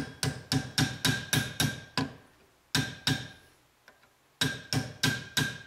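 A hammer tapping a pin punch, driving the small steel roll pin that retains the gas tube into an AR-15's front sight base. The taps are sharp and ring, coming in quick runs: about eight, then two after a short pause, then another quick run near the end.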